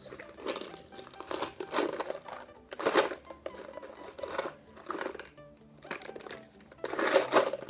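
Cardboard Mike and Ike candy box being prised open by hand: repeated bursts of crinkling and tearing as the flaps give, loudest near the end. Faint music underneath.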